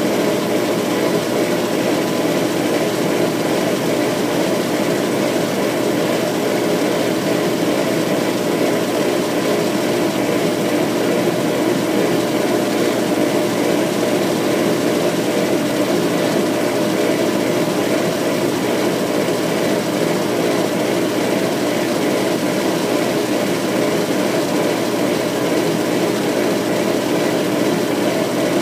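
Laser engraver running through an engraving job: a steady mechanical hum and whir that does not change.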